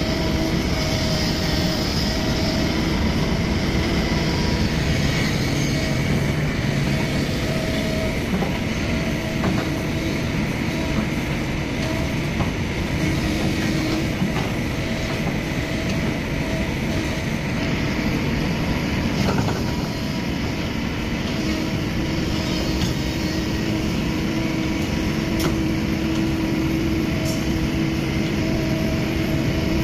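Hydraulic excavators, among them a Kobelco SK210, working at close range: diesel engines running steadily under load with a steady hydraulic whine over them, and a few light knocks as the buckets handle soil and concrete.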